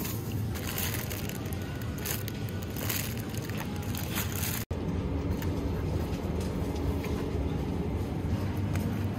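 Thin plastic produce bags crinkling and rustling as groceries are handled in a plastic shopping basket. After a sudden break about halfway, the sound gives way to steadier supermarket background noise.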